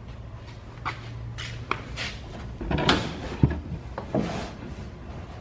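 A person climbing into a car and settling into the driver's bucket seat: a string of rustles, knocks and clunks, busiest around the middle, with one sharp click about three and a half seconds in.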